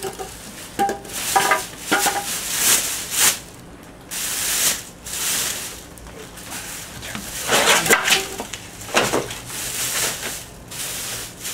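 A clear plastic bag and foam packing blocks being pulled off a newly unboxed portable generator: irregular bursts of plastic rustling and crinkling, with a few short squeaks in the first couple of seconds.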